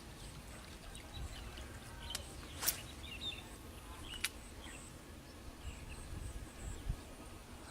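Outdoor ambience with a few faint bird chirps, a low rumble underneath, and two sharp clicks, the first a little under three seconds in and the second about a second and a half later.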